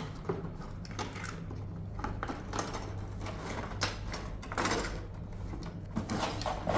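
A knife cutting through packing tape on a cardboard box, with scattered clicks, scrapes and rustling as the box is handled and opened.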